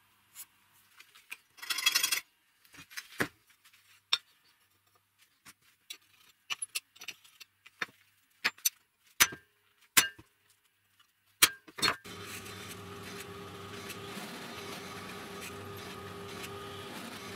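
Sharp clinks and knocks of a steel plate and tools being handled on a wooden workbench, with one short, louder noisy burst about two seconds in. About twelve seconds in, a drill press starts and runs steadily as a step drill bit cuts into the steel plate.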